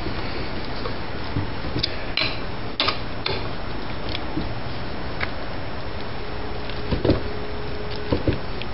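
Adjustable wrench turning a tap through threads in an aluminum alternator housing, worked back and forth a little at a time: scattered small metallic clicks and ticks over a steady background hiss.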